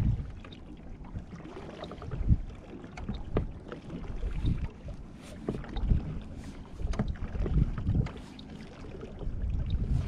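Water slapping irregularly against a fishing boat's hull in uneven low surges, with a few brief sharper knocks.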